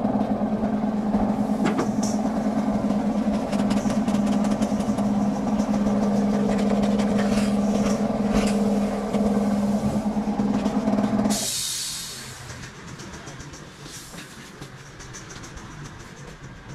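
Body filler on a car bonnet being sanded by hand with a sanding block, a rasping scrape, over a steady low hum that drops away about eleven and a half seconds in.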